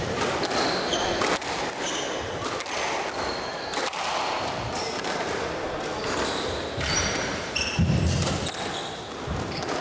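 Squash rally: the ball cracking off the walls and racquets again and again, with rubber shoe soles squeaking on the hardwood court floor. A heavier low thump comes about eight seconds in.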